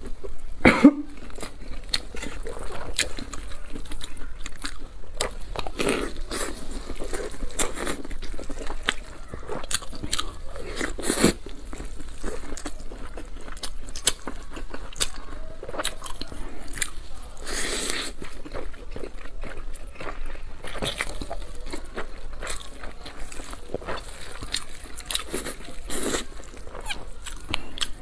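Close-miked eating sounds: a person biting and chewing food, with irregular wet clicks and crunches of the mouth and teeth throughout.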